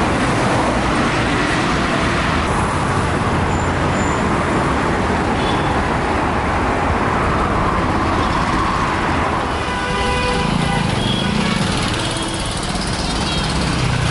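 Busy city road traffic: a steady noise of cars and motorcycles going by, with a vehicle horn sounding briefly about ten seconds in.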